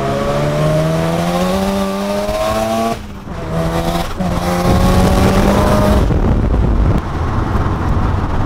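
Mazda RX-7's twin-rotor rotary engine at full acceleration, heard from inside the cabin: the engine note climbs steadily in pitch, breaks briefly about three seconds in and again a second later as it shifts up, and climbs again. About six seconds in the engine note drops out, leaving a loud rushing noise.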